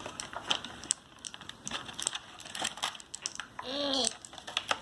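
Plastic toy packaging crinkling, with quick clicks and taps as small plastic doll accessories are pulled out and handled. One short voiced sound comes near the end.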